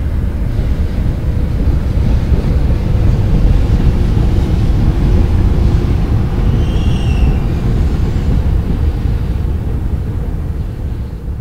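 A JR Freight EH500 twin-unit electric locomotive running light past at speed: a heavy low rumble of its wheels on the rails that swells as it passes and fades near the end. A brief high-pitched tone sounds about seven seconds in.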